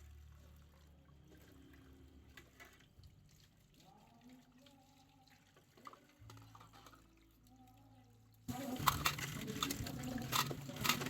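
Near quiet with a faint low hum, then about eight and a half seconds in a tap comes on and water runs into a kitchen sink, with small knocks.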